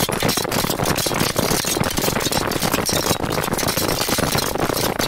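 Dense, continuous clatter of a large body of foot soldiers on the move: many running footsteps overlapping with rattling armour and gear.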